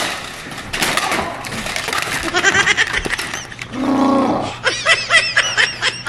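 Yelling and high shrieks at the cold as a bare-skinned man throws himself into deep snow, with the snow crunching and rustling under him. One long low yell comes about four seconds in, then a quick run of short high shrieks.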